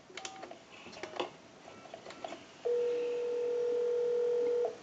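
A short touch-tone keypad beep and a few faint button clicks. From a little past halfway, a steady telephone ringback tone lasts about two seconds, heard over the line amplifier's speaker. It is the sign that the dialled call is going through and ringing at the far end.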